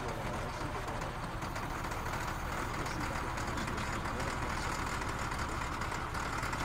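Diesel engine of a motor grader idling steadily.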